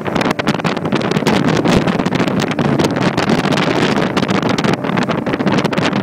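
Heavy wind buffeting the microphone aboard an open motorboat running fast over choppy sea, mixed with the boat's engine and the rush of water.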